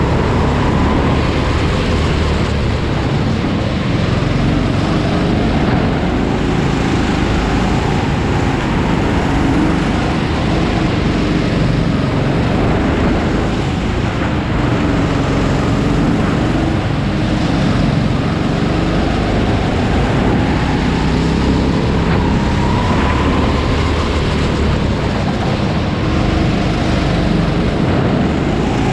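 Onboard sound of a go-kart running hard on a track, its engine note rising and falling with speed through the corners over a steady rush of noise.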